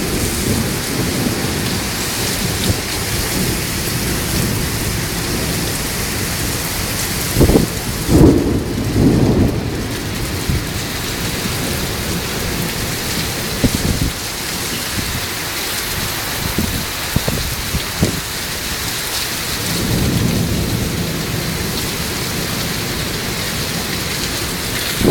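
Heavy rain pouring down in a severe windstorm: a steady hiss, with louder low surges about seven to ten seconds in and again around twenty seconds.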